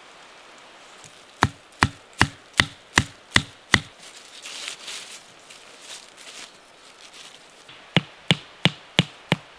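A tent stake being hammered into the ground for a tarp corner: seven sharp knocks at about two and a half a second, then after a pause six more in quicker succession near the end.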